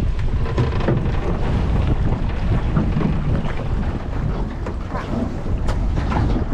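Wind buffeting the microphone on an open boat at sea, a steady rumble, with a few faint short clicks from handling.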